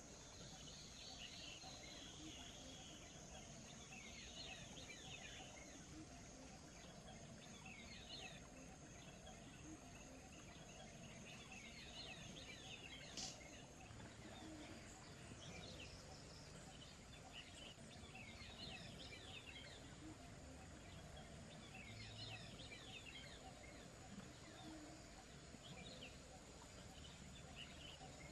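Faint wild birds chirping in short flurries of quick notes every few seconds, over a soft steady hiss of running water and a thin, steady high tone. One sharp click sounds about halfway through.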